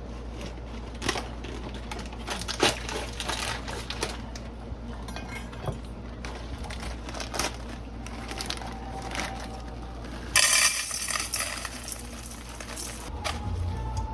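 Dry stuffing mix being shaken from its crinkling bag and spread over a casserole: many small clicks and crackles, with a louder rustle about ten seconds in, over a steady low hum.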